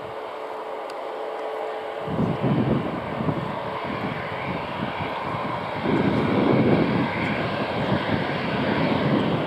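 Airbus A320-family jet taxiing, its engines running at low thrust with a steady jet whine. A low, uneven rumble comes in about two seconds in and grows louder about six seconds in.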